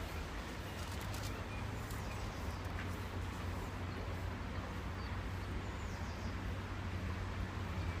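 Steady low hum under quiet background noise, with a few faint short bird chirps and some faint clicks about a second in.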